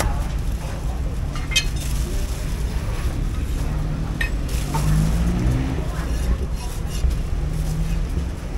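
Cleaver chopping stewed duck on a thick wooden chopping block: a few sharp, irregular knocks over a steady low rumble.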